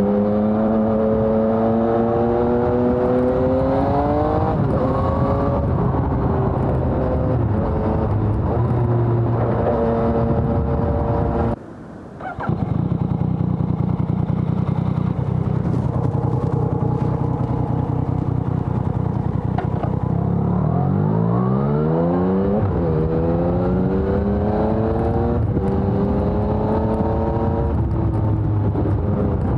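2020 Yamaha XSR900's inline three-cylinder engine through a LeoVince Evo One full exhaust system, pulling through the gears: the pitch climbs under throttle and drops back at each upshift. The sound cuts out briefly a little before halfway, and later the engine revs up steeply through several quick shifts.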